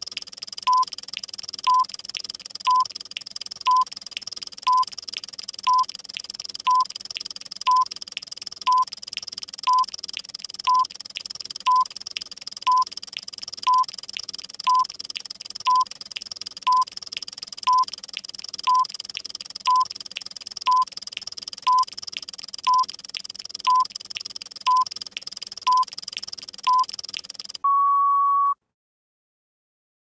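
Countdown timer sound effect: a short electronic beep about once a second over fast, sped-up clock ticking. Near the end it finishes with one longer beep of about a second that stops suddenly.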